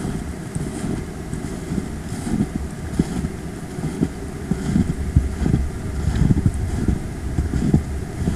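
Wind buffeting the microphone as a low, uneven rumble, with the faint crunch of footsteps in snow at a walking pace.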